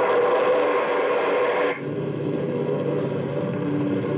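Radio-drama sound effect of a Matador missile launch: a loud rocket roar that cuts off abruptly about two seconds in, giving way to a lower, steady engine drone.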